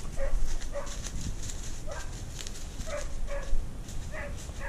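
A hunting hound giving voice on the chase: about six short barks at uneven intervals, the hound's cry while it runs the quarry's trail. Under the barks are a steady low rumble and the rustle of brush.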